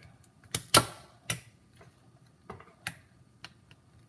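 About half a dozen sharp, irregular plastic clicks and clacks, the loudest within the first second: an orange screwdriver working against a computer mouse's plastic shell as it is pried open.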